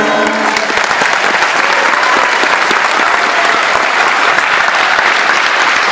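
A concert band's last chord fades out within the first second, and an audience claps steadily through the rest.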